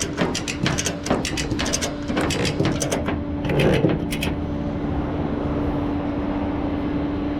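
A ratchet being cranked to tighten a tie-down on a tow truck's flatbed: a rapid run of clicks that stops about four seconds in, over a steady hum.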